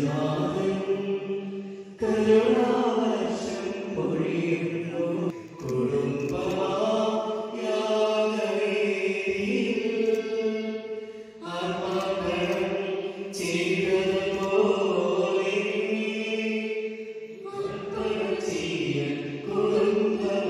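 Slow religious chant: a voice sings long held notes in phrases a few seconds long, with brief pauses between phrases.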